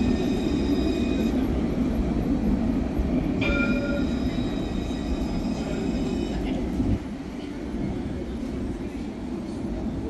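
Alstom Citadis tram running with a steady rumble. A high steady whine sits over the rumble at the start and again from about three and a half seconds. The rumble drops off suddenly about seven seconds in.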